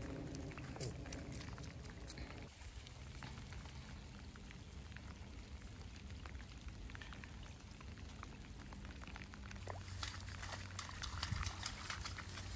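Faint wet crackling and patter of steps on soaked, matted reeds and shallow water, irregular small ticks over a soft hiss, busier and a little louder near the end.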